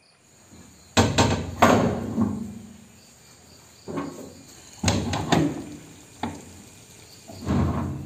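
Steel well door being shut and bolted: a series of metal clanks and thuds as the shutters swing against the frame and the sliding bolt is worked, one clank ringing briefly.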